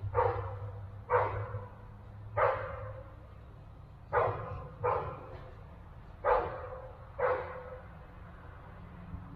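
A dog barking repeatedly: seven loud barks at irregular intervals of roughly a second, over a steady low hum.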